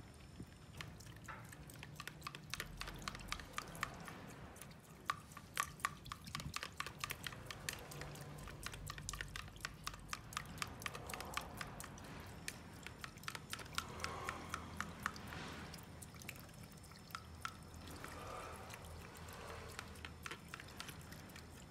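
A toothbrush stirring a thick mixture of dish soap and gasoline in a small plastic tray: a run of quick, irregular wet clicks as the mix is worked smooth and thick.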